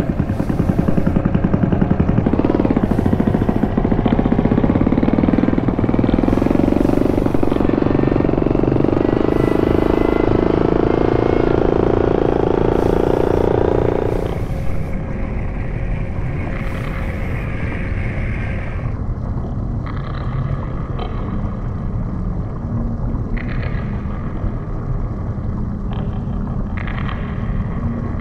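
Noise-pollution soundscape of the installation: a loud, low engine-like rumble whose pitch rises slowly for about fourteen seconds, then drops suddenly to a quieter steady rumble with a few short higher-pitched bursts.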